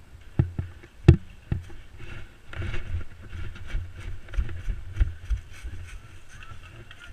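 Two sharp airsoft gun shots about a second in, half a second apart, followed by irregular low thumps and rustling as the player moves.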